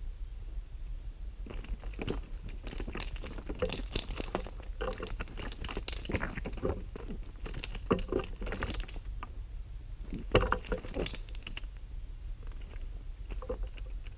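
A trapped bobcat thrashing against a catch pole in dry grass and brush: bursts of crackling and rustling start about a second and a half in and are loudest around eight and ten and a half seconds. They die down to a few scattered crackles near the end.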